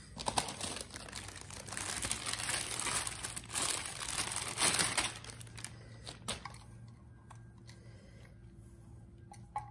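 Clear plastic bag crinkling and rustling as it is handled and opened to take out a foot switch, for about five seconds, then a few light clicks and knocks.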